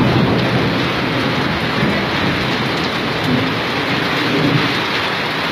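Heavy rain pouring down steadily, mixed with the rush of muddy floodwater flowing fast along a street.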